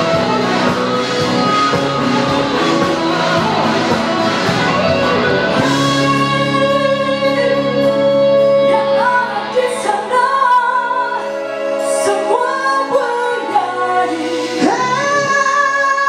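Electric guitar and band playing a rock-styled song. From about six seconds in, a woman sings long held notes over the accompaniment.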